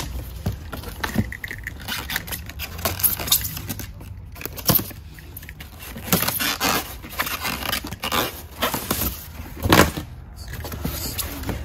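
A cardboard box being unpacked: a utility knife slits packing tape, and the cardboard flaps scrape and rustle in irregular bursts. A louder knock comes near the end.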